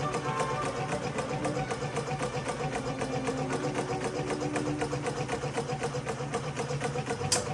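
Singer vibrating-shuttle sewing machine running with a fast, even clatter, with background music under it. A single sharp click comes near the end.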